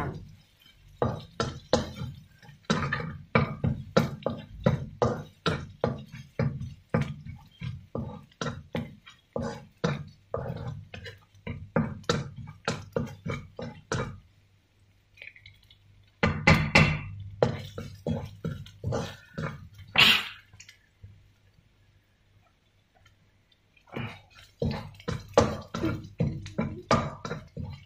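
Metal spatula scraping and knocking against a wok in quick strokes, about two or three a second, while stir-frying garlic and chili. The strokes break off past the middle, go quiet for a few seconds, and resume near the end.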